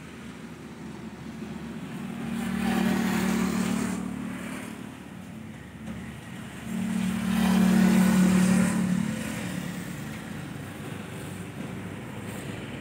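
Motor vehicles passing close by on a road: two swells of engine hum and tyre hiss, the second louder, each rising and fading, with a steady lower engine hum between them.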